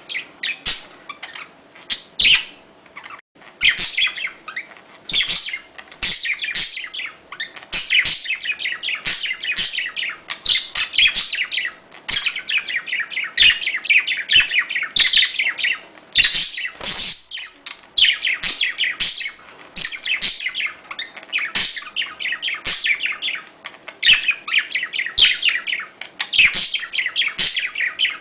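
Budgerigars chattering and warbling in a fast, unbroken run of chirps and trills: the excited breeding-season warble of budgies, a mating call.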